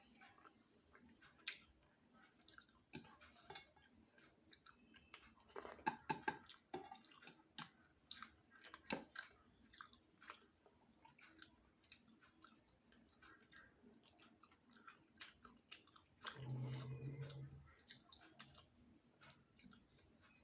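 Faint close-up chewing and mouth sounds of a person eating rice and fish, with scattered small clicks and smacks. A short low hum comes about sixteen seconds in.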